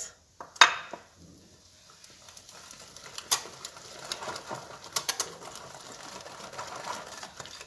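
Wire whisk stirring thick cake batter by hand in a glass bowl, with one sharp clink of the whisk against the bowl about half a second in and a few lighter taps and clicks later over a soft, wet stirring sound.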